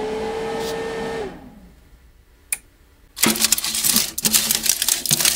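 A foil-lined baking tray scraping and rattling as it slides out along a Chefman toaster oven's wire rack, with a dense run of metallic clicks and foil crinkle in the last two seconds. Before it comes a short steady whine that rises in pitch as it starts and dies away about a second in, then a single click.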